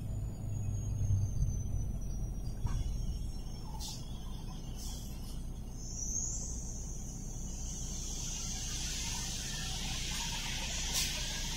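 Steady low road and engine rumble heard from inside a moving vehicle's cab. A faint high whine comes in about halfway through and holds steady, along with a few faint clicks.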